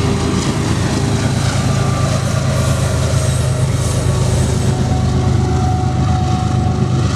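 Freight train cars rolling past on the rails: a loud, steady rumble of wheels on track.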